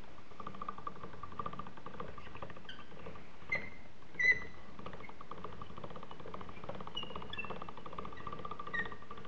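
Hand-cranked chrome pasta roller turning, its gears and rollers giving a steady fine rattling whir with small squeaks as pasta dough is fed through. The cranking stops for about a second and a half midway, with two short knocks, then starts again.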